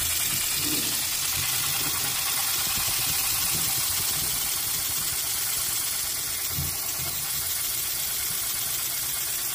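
Miniature paper boxer-twin air engine running on air from a balloon: a rapid, even clatter over a steady hiss. It runs well below the speed the builder expects, a fault he suspects is in the valve timing.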